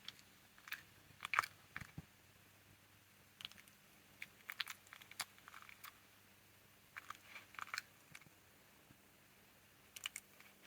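Fox chewing chicken wings, crunching the bones: irregular sharp cracks in small clusters with short pauses between.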